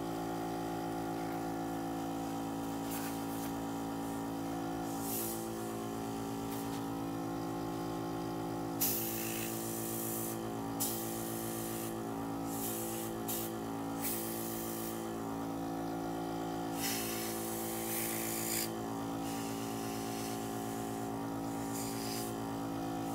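Several short hisses of air from an airbrush blowing alcohol ink, the longest about a second, coming irregularly, mostly in the second half. Soft background music with sustained notes plays underneath.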